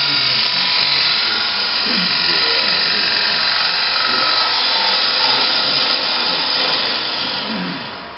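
Bowl gouge making a push cut into the face of a spinning wooden bowl on a wood lathe, riding the bevel: a steady, loud hiss of wood being cut that eases off near the end as the cut finishes.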